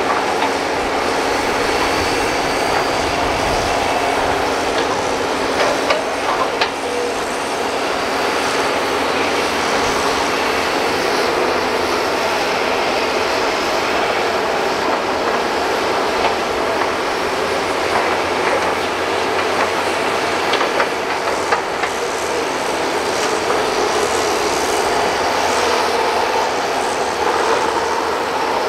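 Several hydraulic excavators working at once: a steady engine drone with a few short knocks.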